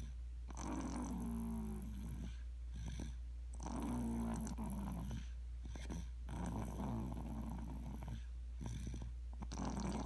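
Snoring, four long pitched snores about three seconds apart, over a steady low hum.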